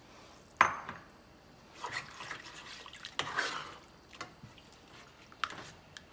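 Water being added to a pan of sausage gravy in a few short splashing pours, with a sharp clink about half a second in and a lighter one near the end.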